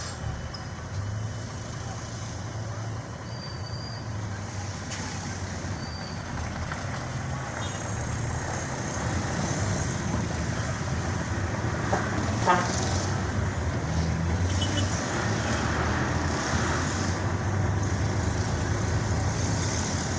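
A vehicle's engine and road noise heard from inside its cab, pulling away in town traffic and growing steadily louder as it picks up speed. Short horn toots and brief high squeaks from the surrounding traffic come through now and then.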